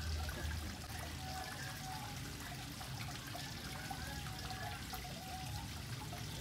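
Water trickling steadily down a stone wall water feature into a pond.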